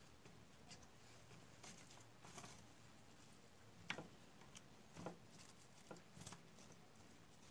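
Faint, scattered taps and rustles of sliced zucchini and broccoli pieces being set into a glass baking dish, the sharpest tap about four seconds in.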